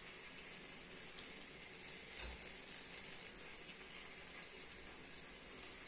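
Floured turkey pieces sizzling faintly and steadily in a frying pan while clementine juice is squeezed over them.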